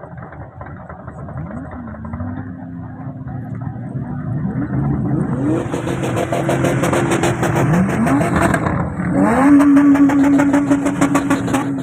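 Performance car engine revved repeatedly: several quick climbs in pitch while getting louder, then held at high revs near the end.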